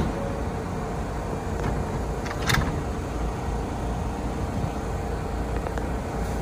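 New York City subway L train rumbling along the track: a steady low rumble with a single sharp clack about two and a half seconds in.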